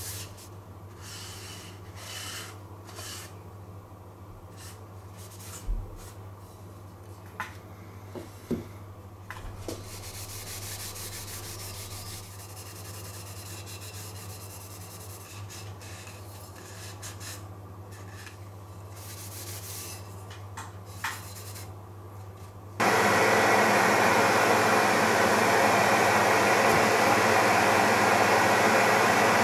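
A cloth rubbing oil finish onto wooden blocks, soft scrubbing strokes with a few light knocks as the blocks are handled and set down. With about six seconds left, a loud steady rushing machine noise starts abruptly and drowns it out.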